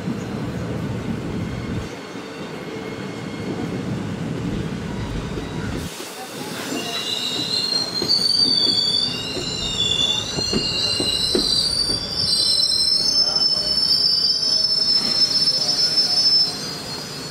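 Steel wheels of passenger coaches squealing as the train slows into the station. A low rolling noise fills the first few seconds; from about six seconds in, several high squealing tones that waver in pitch come in and cut off shortly before the end.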